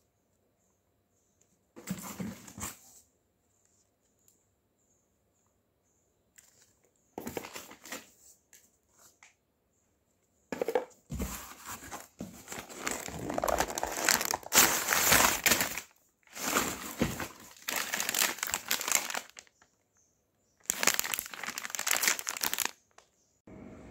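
Cardboard box and plastic-wrapped product packs being handled and pulled out, crinkling and rustling in several bursts with silent gaps between. The longest and loudest stretch comes in the middle, and a last crinkle comes near the end as a plastic pack of wipes is lifted out.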